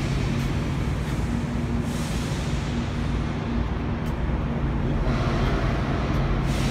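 Steady low drone of idling truck engines and machinery, with a hum held at one pitch.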